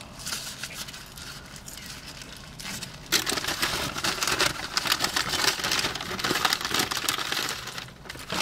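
A paper fast-food sandwich wrapper crinkling and rustling as it is handled. Light handling at first gives way, about three seconds in, to a dense run of quick crackles that lasts about five seconds.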